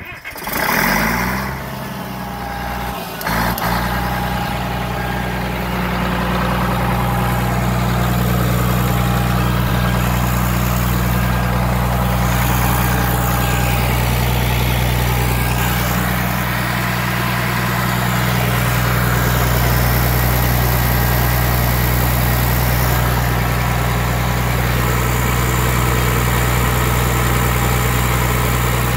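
Yellow skid-mounted industrial diesel engine starting up: it comes up to speed within the first couple of seconds, gives a sharp knock a little over three seconds in and gets louder, then runs steadily.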